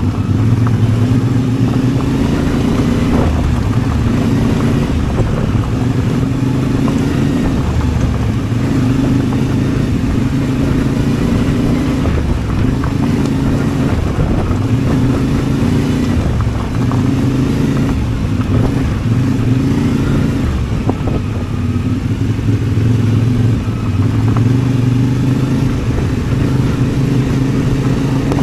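CFMOTO 450MT's parallel-twin engine running under way, its note stepping up and down every second or two as the throttle is opened and closed.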